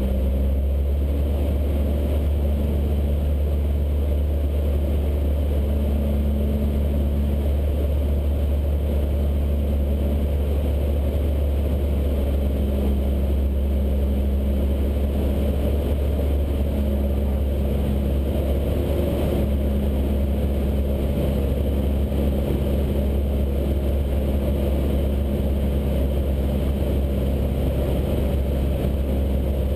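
Cessna 152's four-cylinder Lycoming O-235 engine and propeller droning steadily in flight, heard inside the cabin.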